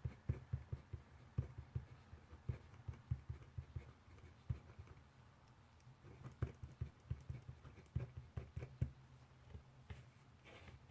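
Pencil writing on paper on a desk: irregular light taps and scratches of the strokes, with a brief rustle of paper near the end.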